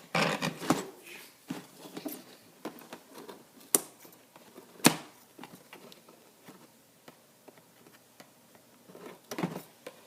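Cardboard Lego set box being opened and handled by hand: scattered scraping and rustling with a few sharp clicks, the loudest about four and five seconds in, and a short cluster of knocks near the end.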